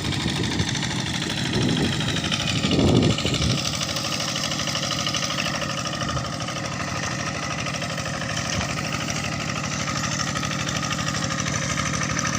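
Kubota RD85 single-cylinder diesel on a TL800 walk-behind tractor, running with a steady chugging beat. It grows briefly louder about three seconds in.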